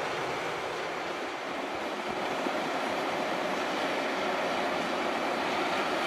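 Steady running noise of an Ammann AP240 pneumatic-tyred roller driving, its diesel engine and rubber tyres rolling over the gravel base, growing slightly louder about two seconds in.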